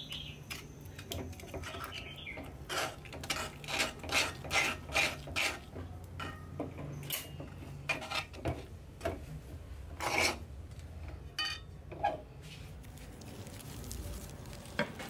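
A metal spoon stirring and scraping thick dough against the side of a metal bowl. A fast run of scraping strokes, about two to three a second, comes a few seconds in, followed by scattered single scrapes and clinks. A steady low hum runs underneath.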